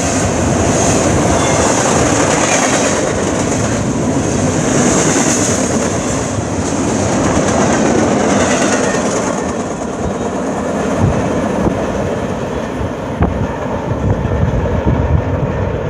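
Train rolling past with a steady rumble of wheels on rail. A high wheel squeal swells and fades several times in the first half, and sharper clicks of wheels over rail joints come in the last third.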